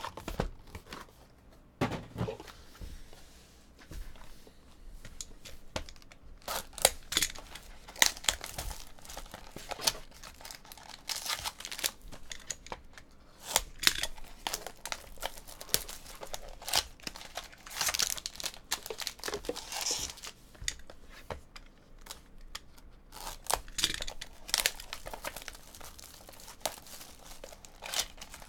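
Plastic wrapping on trading card packs crinkling and tearing as it is pulled open by hand, in irregular short crackles and rustles.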